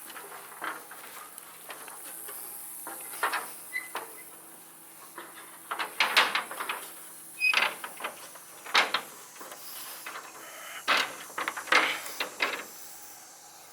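Irregular clusters of knocks and clatter, a few sharp hits at a time, over a steady faint hiss.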